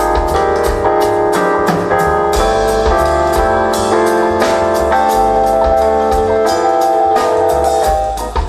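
Small jazz band playing: piano and held chords over double bass, with the drum kit keeping a steady cymbal beat.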